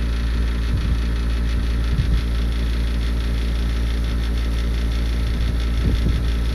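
Steady low hum, even and unchanging.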